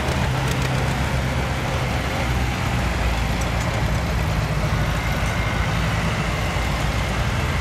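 Heavy engines running steadily: the diesel locomotives of an approaching freight train mixed with classic farm tractors crossing ahead of it.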